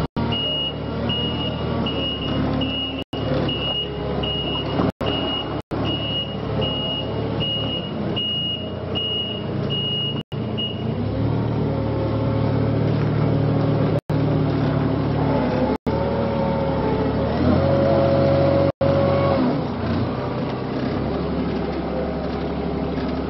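A vehicle's reversing alarm beeping at an even pace, about three beeps every two seconds, over the steady rumble of a heavy engine. The beeping stops about eleven seconds in, and the engine runs on with its note shifting up and down. A few instant gaps cut the sound.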